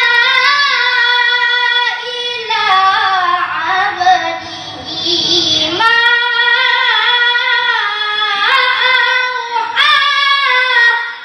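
A boy's high voice reciting the Quran in melodic tilawah style, holding long ornamented notes in phrases that pause briefly about 2, 6 and 8½ seconds in, and fading out near the end.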